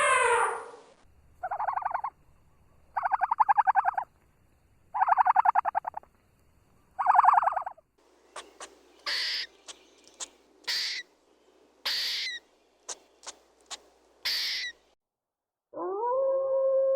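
Animal calls: four rasping calls, each about a second long and made of rapid pulses. They are followed by a run of short, sharp, high-pitched calls, and near the end a long steady howl-like call begins.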